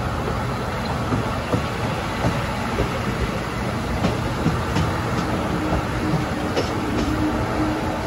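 12 series passenger coaches running along the track: a steady rumble of wheels on rail, with scattered light clicks over the rail joints.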